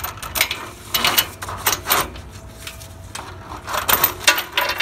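Braided stainless steel oil line and gloved hands rubbing and scraping against engine-bay parts as the line is fed through, in irregular short rustling scrapes.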